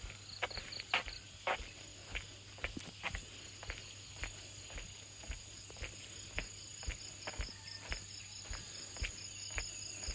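Regular light knocks, about two a second, like steady footsteps, over insects chirring steadily.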